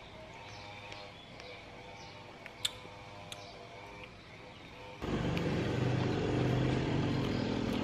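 Faint bird chirps and a single light click, then about five seconds in a sudden switch to the louder, steady rumble of a motor vehicle engine.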